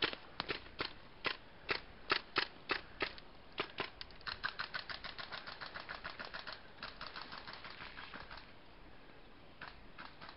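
Airsoft guns firing in short sharp cracks. Single shots come a few a second for about three and a half seconds, then a rapid run of about ten shots a second for around four seconds, then a few more shots near the end.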